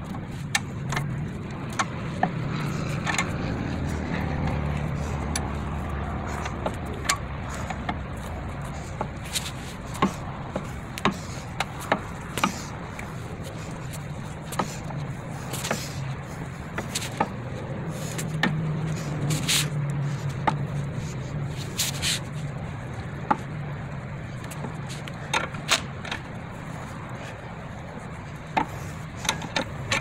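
Scissor jack being cranked by its hook-ended jack handle to lift a car: irregular metal clicks and scrapes as the handle's hook turns in the jack's screw eye.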